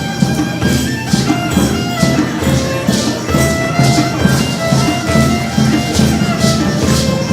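Live band music: a violin playing a melody over drums, with hand percussion rattling on the beat about twice a second.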